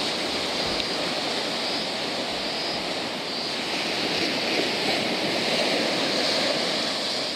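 Ocean surf: waves breaking and washing on the shore, a steady rush that swells a little past the middle.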